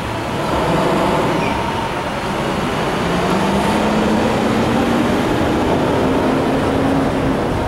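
Traffic noise of cars driving slowly past, with one vehicle's hum rising gradually in pitch from about three seconds in.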